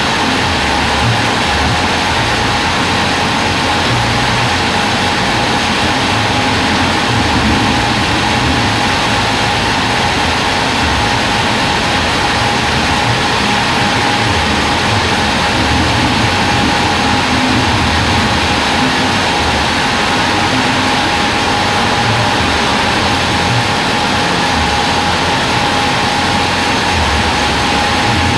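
Log band sawmill running steadily, a machine drone with one steady high whine over it and an uneven low rumble.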